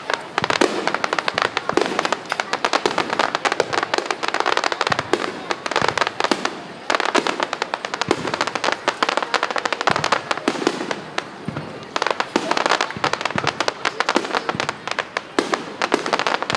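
Fireworks bursting in quick succession: a dense run of sharp pops and crackles from many shells and crackling stars, broken by a few short lulls.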